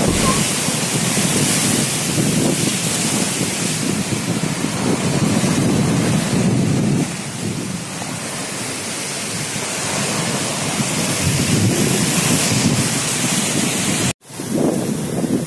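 Strong wind buffeting the microphone over waves washing and breaking onto a rocky shore, in uneven gusts. The level drops a little about halfway through and cuts out for an instant near the end.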